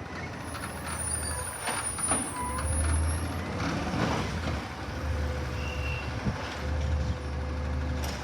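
Garbage truck working at the curb: its engine runs with a low hum that swells and fades about every two seconds, with a few sharp knocks early on.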